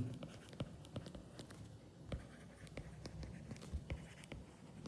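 Faint stylus tapping and scratching on a tablet as a word is handwritten, in small irregular ticks.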